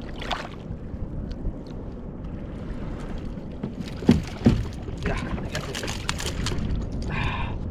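Sea water lapping and splashing against a kayak as a hooked fish is brought up at its side, with two loud thumps about four seconds in and smaller splashes and clicks after.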